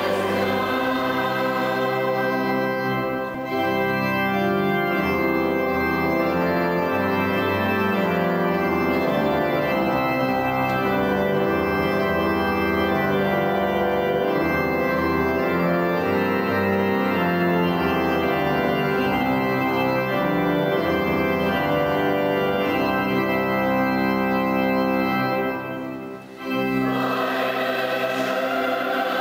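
Sacred music: organ chords held and changing slowly, with a choir singing. The music breaks off briefly a few seconds before the end, then resumes.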